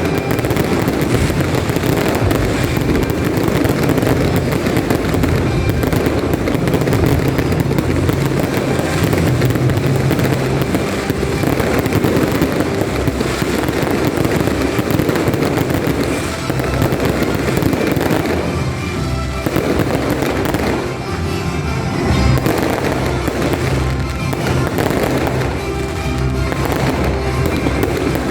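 A fireworks display, with dense, continuous crackling and popping explosions and music playing underneath.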